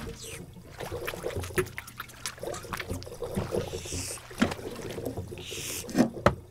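Cartoon water effects from a fish tank: water sloshing and splashing in a run of small wet clicks, with a louder splash and a couple of sharp hits near the end.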